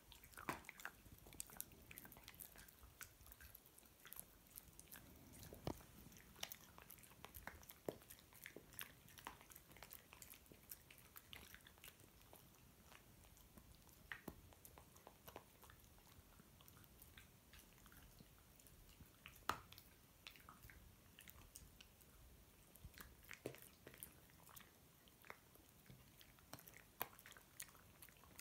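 Chinese crested dog chewing something crunchy: irregular, sharp crunches and bites, close to the microphone.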